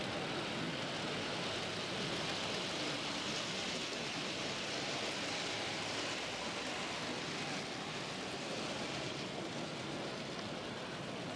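H0-scale model train, a DB class 86 steam tank locomotive with freight wagons, rolling past close by on the track: a steady rushing noise that swells in the middle and eases slightly near the end.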